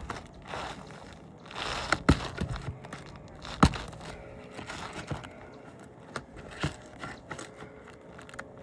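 Prying nails out of asphalt roof shingles: scraping and crinkling of the shingle with several sharp metal knocks, the two loudest about two and three and a half seconds in. The nails are stubborn and held fast in the decking.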